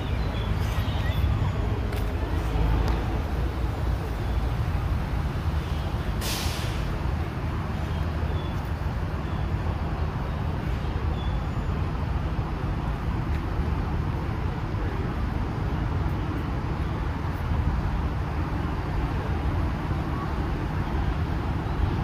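Steady low rumble of road traffic, with one brief sharp hiss about six seconds in.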